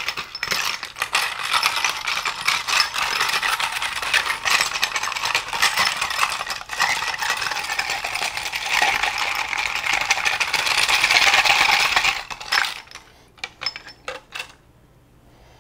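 Small metal differential gears and parts clinking and rattling against each other and the tub as they are scrubbed with a toothbrush in a bath of Shellite solvent. It stops about twelve seconds in, leaving a few scattered clicks.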